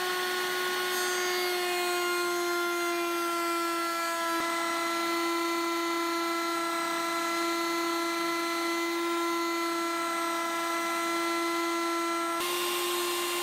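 Table-mounted router spinning a pattern cutting (flush-trim) bit at full speed while trimming East Indian rosewood flush with purpleheart: a steady high motor whine over the hiss of cutting. Its pitch sags slightly over the first few seconds.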